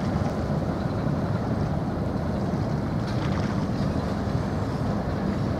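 Steady seaside ambience: a low rumble and hiss, with wind on the microphone.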